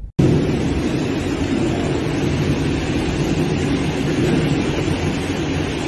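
Storm wind and heavy rain making a loud, steady roar that starts abruptly.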